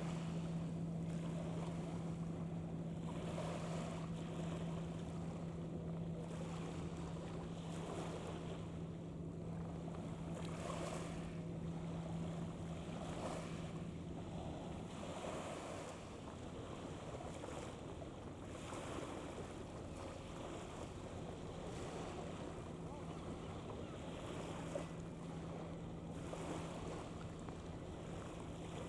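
Wind buffeting the microphone and waves washing on the shore, over a steady low hum that fades away about halfway through and returns near the end.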